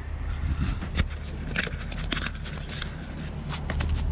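A freshly landed grey mullet flapping on concrete paving stones: a run of slaps and taps, one sharp slap about a second in and a dense patter in the middle, over a low steady rumble.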